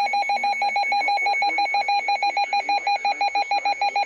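Weather alert radio receiver's alarm going off for an incoming severe thunderstorm warning: a rapid, steady electronic beeping at about nine pulses a second.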